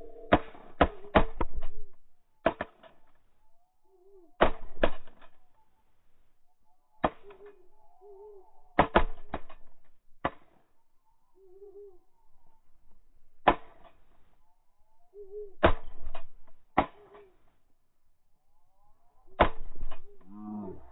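Sharp clicks and knocks in small clusters of two to four, repeating every second or two, with faint short bird calls between them.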